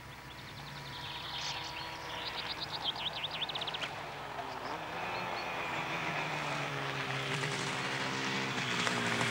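Motorcycle engine approaching and growing steadily louder, its pitch shifting as it comes. A bird sings a quick trill from about one and a half to four seconds in.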